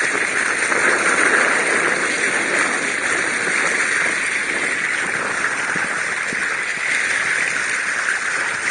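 Bow wave of a Canoa do Tejo sailing boat under way, water rushing and splashing steadily along the hull close to the microphone.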